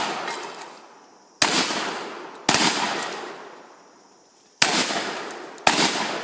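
Four gunshots from a firearm in two pairs about a second apart, the first pair about a second and a half in, the second about four and a half seconds in. Each shot rings out with a long echoing decay.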